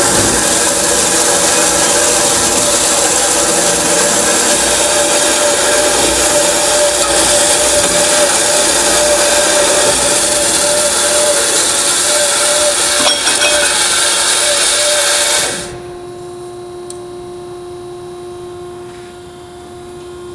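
Hydraulic-feed metal-cutting band saw running through a cut, a loud steady grinding noise with a steady tone in it. About three-quarters of the way through, the cutting noise stops suddenly, leaving a quieter steady machine hum.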